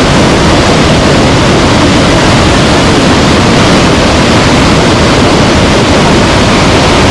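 Loud, steady rushing of a large waterfall.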